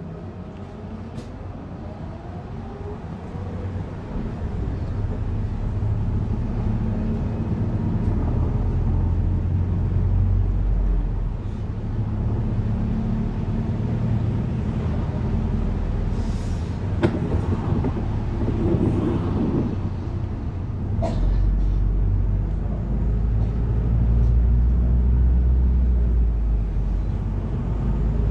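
London bus in motion, heard from on board: a steady low engine and road rumble that builds about four seconds in as the bus picks up speed, grows heavier again near the end, and has a couple of sharp knocks in the middle.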